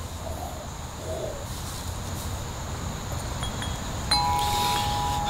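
Metal tube wind chime sounding about four seconds in, two clear tones starting together and ringing on steadily.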